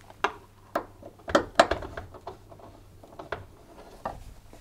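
A handful of sharp, irregular clicks and knocks: a screwdriver working the hinge screws of a tumble dryer door and the door being lifted off its hinges.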